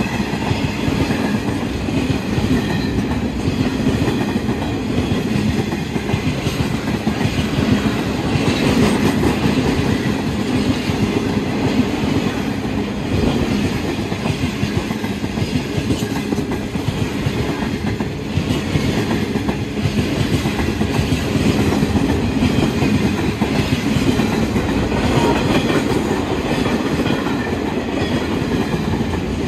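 Empty flat wagons of a freight train passing close by: a steady, continuous noise of steel wheels running on the rails.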